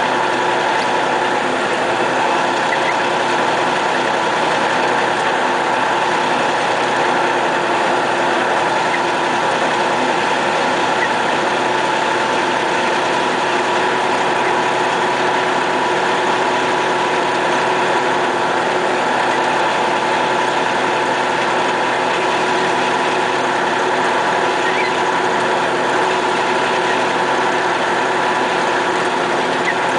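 Diesel engine of a MAZ snowplow truck running steadily while driving, heard from the cab as an even drone with a constant hum.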